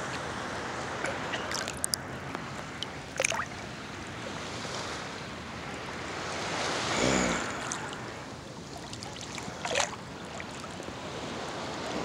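Calm sea water lapping and sloshing against a phone held at the surface, with a couple of small splashes and a louder slosh about halfway through.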